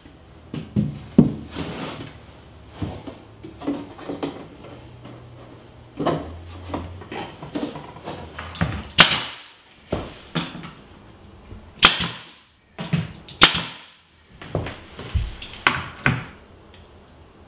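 A sheet of MDF beadboard is knocked and shuffled against the wall as it is fitted into place. Then a nail gun fires several sharp shots, the loudest about nine, twelve and thirteen and a half seconds in, fastening the panel to the wall.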